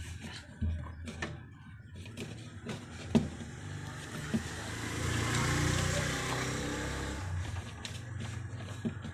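A motor vehicle passing by, its noise swelling and fading over about three seconds midway, over a low hum. Scattered light clicks and knocks come and go throughout.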